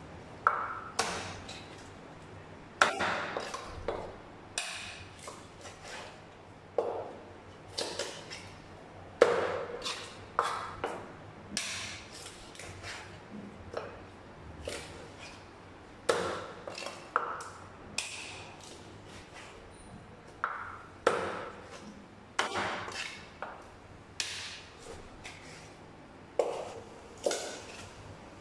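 Large knife chopping through raw tuna loin onto a wooden cutting board: a string of sharp knocks at irregular intervals of a second or two, each with a short ringing tail.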